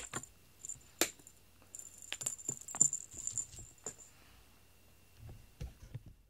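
Small metal tag on a cat's collar clinking and jingling in scattered light clinks as the cat moves its head.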